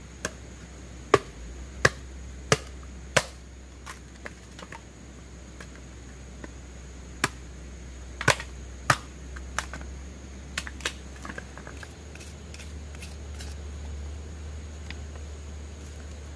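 A series of sharp knocks or chopping strikes, about a dozen, irregularly spaced. They come in two clusters, one in the first three seconds or so and one around the middle, over a steady low hum.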